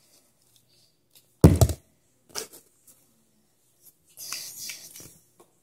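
A small plastic bubble-solution bottle being flipped: a single dull thunk about one and a half seconds in as it lands, a lighter knock about a second later, then a short rustle of handling.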